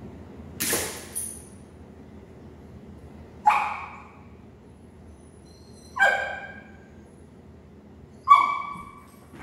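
A dog barking three times: single barks about two and a half seconds apart, each starting sharply and fading quickly. About a second in there is a short noisy burst.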